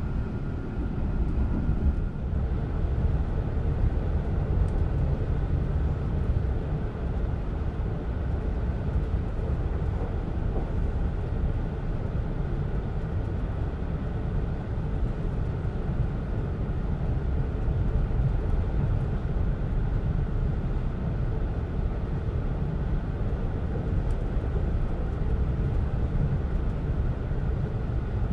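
Steady low rumble of a sleeper train's passenger coach under way, heard inside the car: the running noise of the wheels and bogies on the rails. A faint steady whine sounds at first and stops about two seconds in.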